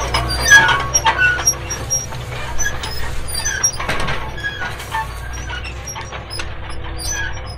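A steady low engine drone with many short, high chirps and a few sharp clicks over it.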